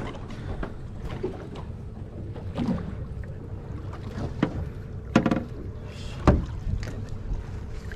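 Steady wind and water noise on an open fishing boat while a hooked fish is wound up on a slow-jigging reel, broken by a few short sharp knocks, the loudest about five and six seconds in.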